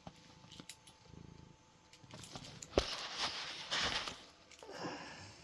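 Domestic cat purring softly right at the microphone, interrupted by a sharp tap and about a second of rustling as its fur brushes close to the phone.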